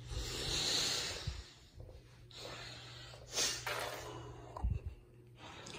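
A person breathing close to the microphone: a few loud, hissy breaths.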